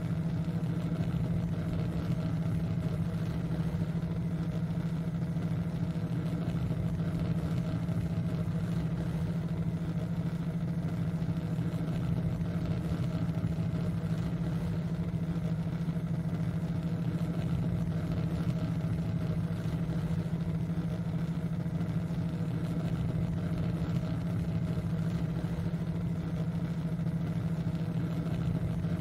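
Steady, unchanging synthesized drone dominated by a low hum, with a rougher wash of noise above it: a meditation-style frequency track with binaural theta-wave beats.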